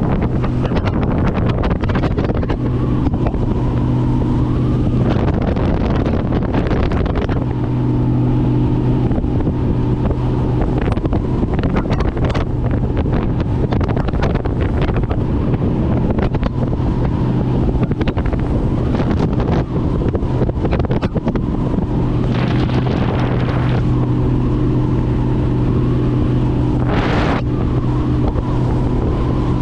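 A motorboat's outboard engine running steadily at speed, with wind buffeting the microphone.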